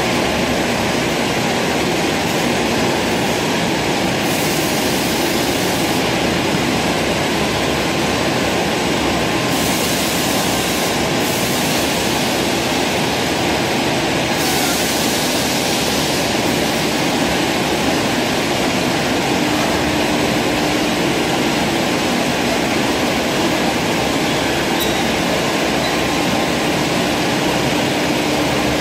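Bottle conveyor and tunnel spray sterilizer running: a steady loud mix of machine noise and water spraying onto the bottles, with a few brief hissier surges.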